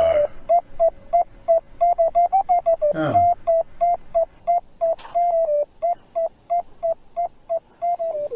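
A rapid train of electronic beeps at one mid pitch, about four a second, some held a little longer than others, with a quick downward sweep about three seconds in and another, higher and shorter, about five seconds in.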